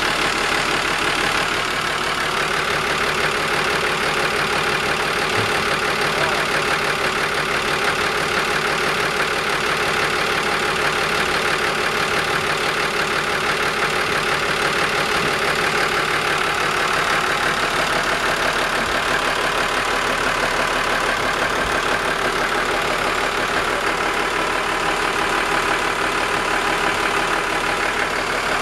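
Yamaha FC-27 boat's inboard diesel engine idling steadily, heard close up in the open engine compartment.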